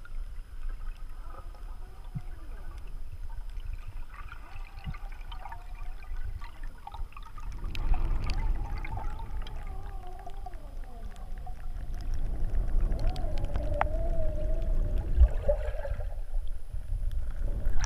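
Muffled underwater sound of a freediver pulling up a line toward the surface: a low rumble of water moving over the camera housing, with faint wavering tones and small bubbly clicks. It grows louder about eight seconds in as the ascent speeds up.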